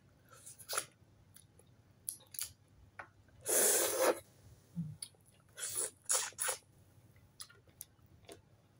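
Mouth noises of someone eating fried tilapia by hand: short, wet chewing and sucking sounds as the fish head is picked apart, with one longer, louder noise about three and a half seconds in.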